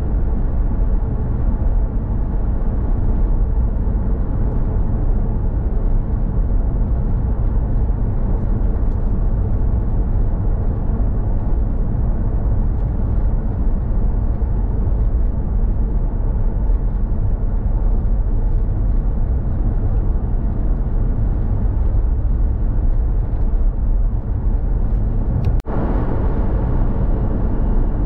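Car driving at speed on an open road: steady road and engine noise, with a momentary dropout near the end.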